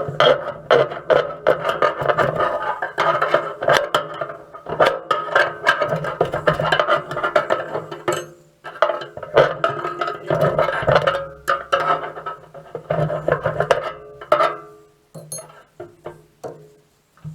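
Hammer blows on a steel plate in quick succession, each strike ringing at the same metallic pitches, as the plate is knocked into place in the feeder bucket. The blows pause briefly twice and thin out near the end.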